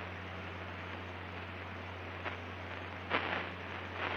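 Steady drone of a Cirrus SR22's six-cylinder piston engine and propeller in cruise, heard in the cockpit as a low hum under a constant hiss. A brief louder burst comes about three seconds in.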